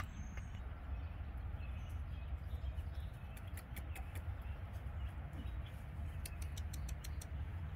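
Backyard hens in a run: light pecking clicks and a few faint soft clucks over a steady low rumble.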